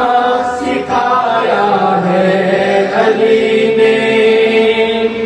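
A man singing a naat, an Urdu devotional song, unaccompanied into a handheld microphone, drawing the melody out in long sliding notes; from about three seconds in he holds one note steady for roughly two seconds.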